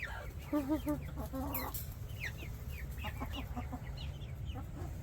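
Backyard hens clucking, with a few drawn-out calls in the first second or so and short high downward peeps scattered throughout.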